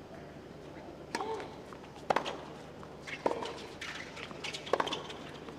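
Tennis ball struck by rackets in a doubles rally on a hard court: a serve, then about three more sharp hits, roughly a second apart.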